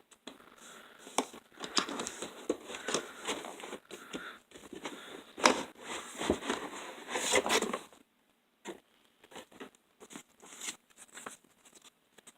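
Packaging of a gaming headset box being handled and torn open: dense crinkling, tearing and rustling with sharp crackles for about eight seconds, then only a few scattered rustles and clicks.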